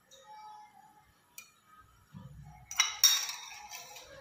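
A steel spoon clinking against metal cookware: a faint click about a second and a half in, a dull knock, then two sharp clinks with a ringing tail about three seconds in.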